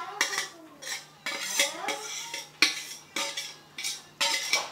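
Metal spatula scraping and knocking against a stainless steel pan, tapping the sautéed mixture out into the batter: a string of short, irregular scrapes and clinks.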